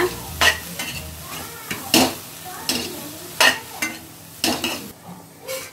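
A spatula stirring and scraping chopped cabbage and onion around a hot pan over a faint sizzle, in about six separate strokes. The spice powders are being mixed into the fry.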